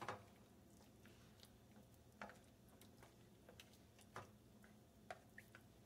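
Near silence, with a handful of faint, irregularly spaced clicks of a utensil against the pot as the thickening stock-and-roux sauce is stirred.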